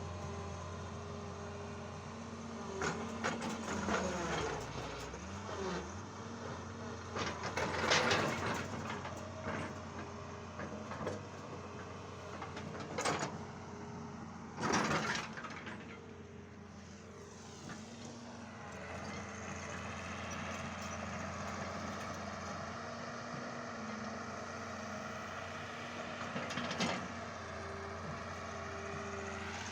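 Excavator's diesel engine running steadily at work, its pitch dipping and recovering about four seconds in, with scattered louder scrapes and clanks, the loudest around eight and fifteen seconds in.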